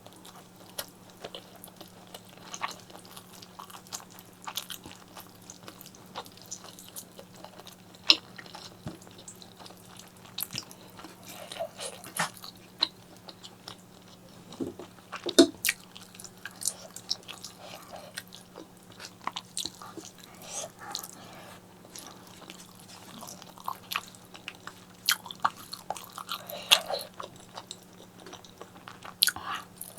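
Close-miked eating of spicy pork leg curry with eggplant and rice: irregular wet chewing, biting and smacking with sharp little clicks and crunches, over a faint steady hum.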